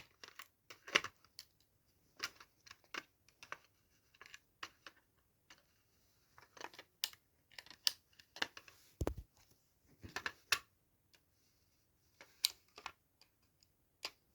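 Scattered light clicks and taps of a plastic smoke alarm being handled while a battery is worked back into it, with one duller thump about nine seconds in.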